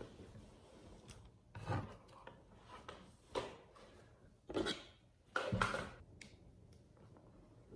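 Cloth tote bags being handled and packed: about four short bursts of fabric rustling and rubbing, with a few faint ticks near the end.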